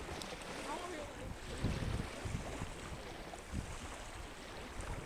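Wind buffeting the microphone in repeated low gusts over a steady wash of beach surf.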